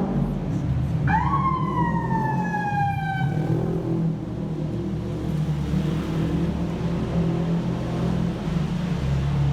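A single horn-like note, about a second in, that jumps up and then slides slowly down in pitch for about two and a half seconds, over a steady low rumble.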